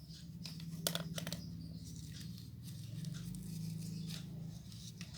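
Small clicks and rustles of paper craft materials being handled, with a cluster of sharp clicks about a second in, over a steady low hum.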